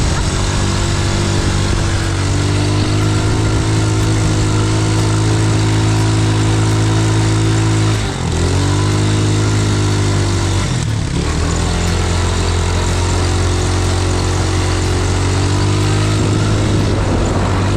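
Quad bike engine running steadily under throttle. Its revs drop briefly and pick back up about eight seconds in, and again about three seconds later.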